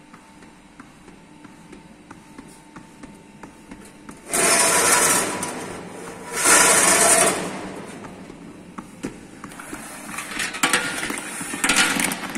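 Walnuts in the shell rattling and rolling across a galvanized sheet-metal chute: two loud rattling runs about two seconds apart, then scattered clicks and knocks of nuts against the metal.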